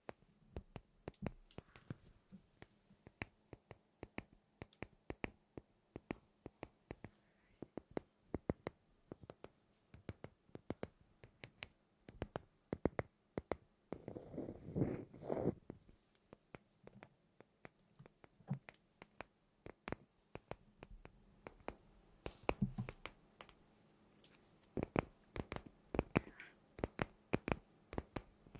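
Many light, irregular taps and clicks, with a few short scratching bursts about halfway through and again near the end.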